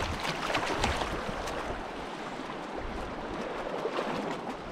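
Shallow stream water flowing, with some splashing in the first second or so.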